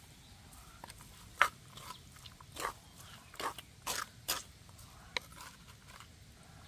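Wooden spatula scraping and knocking against a blackened wok while stir-frying minced pork and vegetables, in about seven short, sharp strokes at uneven intervals.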